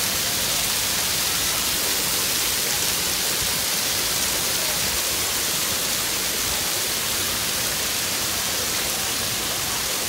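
Steady rushing hiss of fountain jets and water spraying and falling onto a splash-pad play structure.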